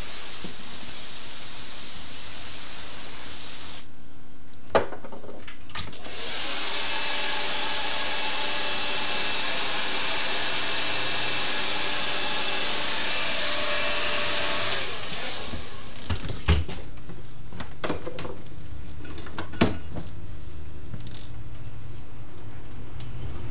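Handheld hair dryer switched on about six seconds in, running steadily on the hair for about eight seconds, then switched off. Before it, a steady spray hiss; after it, a few sharp knocks and taps.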